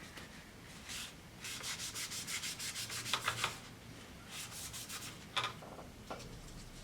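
Quick back-and-forth scrubbing strokes, about eight a second for two seconds, then two short bursts of rubbing. This is most likely a brush or cloth working over a part of the keyboard as it is cleaned.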